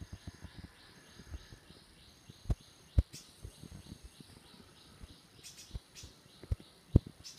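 Wildlife chirping in dense tropical vegetation: a high, thin chirp repeated about once a second over a faster pulsing chirp, about four a second. A few sharp knocks, the loudest sounds, come about three seconds in and again near the end.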